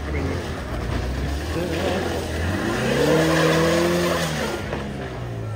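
MG F sports car's engine revving hard under load on a steep loose climb, its pitch rising to a peak about three seconds in and then dropping as it passes, with tyres spinning and scrabbling on mud and stones.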